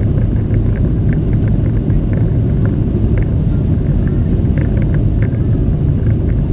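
Steady low rumble of a Boeing 737-700's cabin: its jet engines and the airflow, heard from a seat by the wing.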